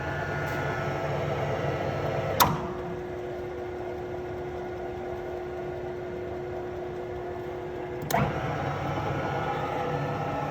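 Alzmetall AB35S drill press running with a steady mechanical hum. A sharp click comes about two seconds in, after which the running sound settles to a single steady tone, and a second click near eight seconds brings back the earlier fuller hum.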